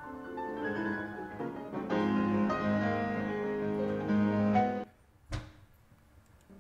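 Piano music generated by DeepMind's WaveNet neural network. A short sample plays and cuts off abruptly about five seconds in, a single sharp click follows, and another quieter piano sample starts near the end.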